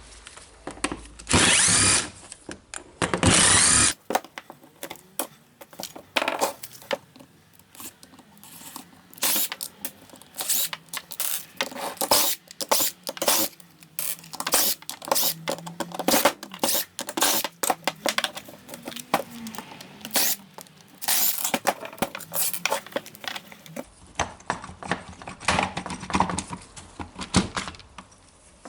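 A power tool runs in two short, loud bursts near the start. Then comes a long run of scattered clicks, taps and knocks: screws and plastic housing parts being handled while a cordless rotary hammer drill is taken apart.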